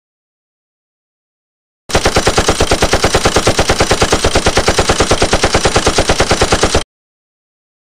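Rapid automatic gunfire, about ten shots a second, starting about two seconds in after dead silence and cutting off abruptly after about five seconds.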